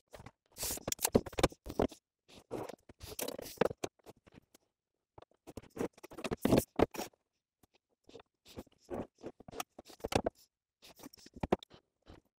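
Irregular clicks, taps and scrapes of marking tools being handled on a pine furniture panel: a steel square and a long steel rule laid down and slid across the wood, in short uneven bursts with brief pauses between.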